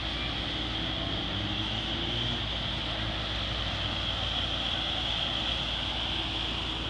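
River passenger boat's engine running steadily while its propeller churns white wash, with a steady rush of churning water.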